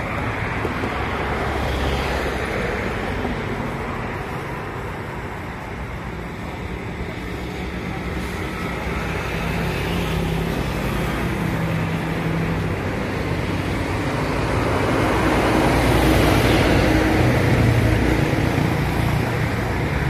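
Road traffic noise: a steady wash of passing vehicle engines, growing louder about three quarters of the way through.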